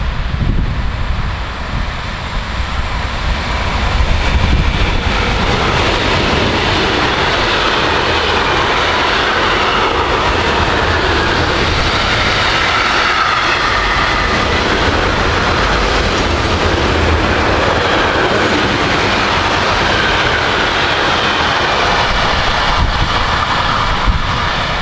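A train passing close by on the line, a steady loud rumble and rush of wheels on rail that grows louder about four seconds in and holds.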